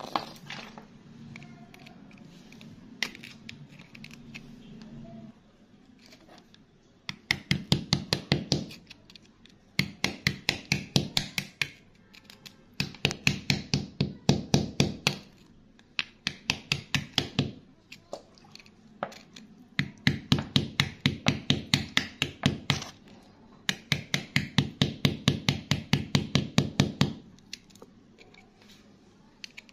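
A hand tool chipping and picking at wet rock around an embedded stone, in six runs of rapid sharp taps, several a second, with short pauses between runs. Before the tapping starts there is a low hum with a few scattered knocks.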